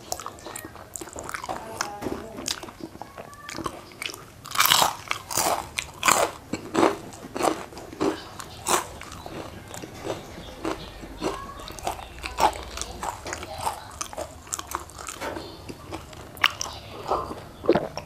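Close-miked crunching and chewing of crispy deep-fried chicken wings, the breaded coating giving many sharp crunches, the loudest run about four to six seconds in.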